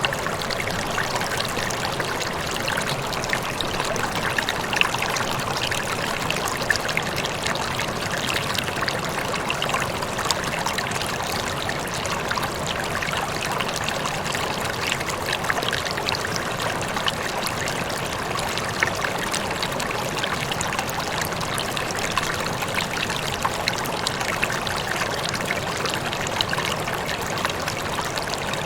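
Rippling, trickling water running steadily: a dense, even babble of small splashes and droplets.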